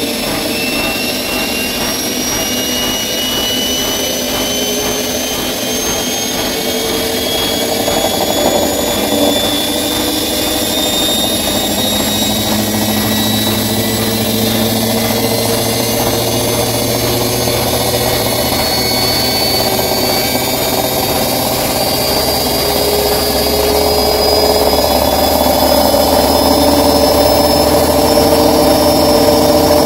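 Bosch Maxx 6 washing machine spinning up at high speed, a loud mechanical rumble with a whine that rises slowly in pitch as the drum speeds up. The uploader takes this high-speed noise, still there after new motor bearings, for a broken drum.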